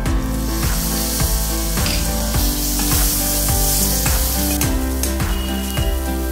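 Chopped tomatoes and garlic sizzling in hot oil in a stainless steel pan while a spatula stirs them, the sizzle strongest for the first four seconds or so, then easing. Background music with a steady beat plays throughout.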